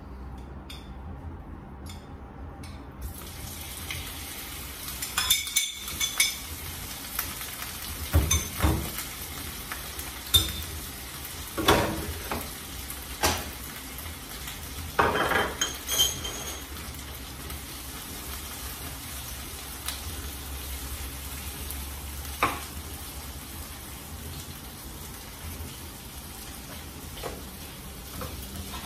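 Liver and hearts sizzling in a frying pan as they reheat, a steady hiss. Clinks and scrapes of a spoon and spatula against the pan and dishes come in a cluster between about five and sixteen seconds in.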